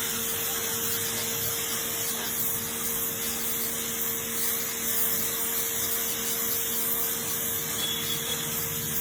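Black+Decker BXPW1600E electric pressure washer running, its motor and pump humming steadily under the continuous hiss of the water jet spraying.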